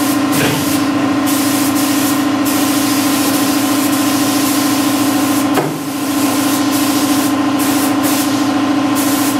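Hiss of a gravity-feed spray gun spraying primer over a steady machine hum; the hiss breaks off briefly several times, and there is a short dip about six seconds in.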